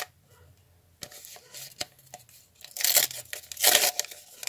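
A squared notebook-paper packet being torn open and pulled apart by hand: a string of paper rips and crinkles after a quiet first second, loudest about three to four seconds in.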